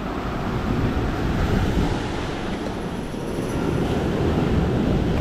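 Ocean surf washing and churning against a rocky shore: a steady, loud rushing rumble that swells and eases slightly.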